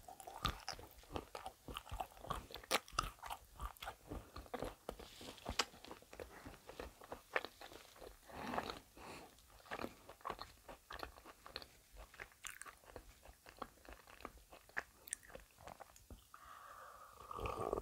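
Close-miked chewing of a Ferrero Rocher Easter egg's chocolate shell with hazelnut pieces: many small crisp crunches and mouth sounds. There are sips from a mug of coffee about halfway through and again near the end.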